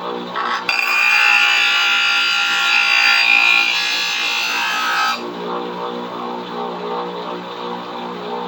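Bench grinder running at speed, with a steady motor hum. About a second in, a steel screwdriver tip is pressed against the wheel and grinds with a loud, high, scraping whine for about four seconds, then is lifted off, leaving the motor running.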